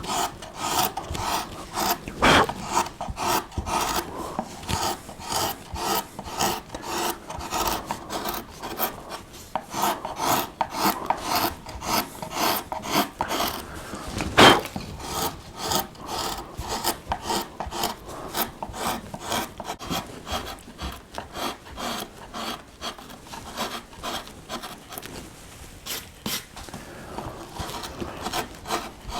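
Flat woodcarving gouge paring wood by hand in short repeated cuts, a couple a second, levelling the floor of a shallow recess; one sharper cut about halfway through.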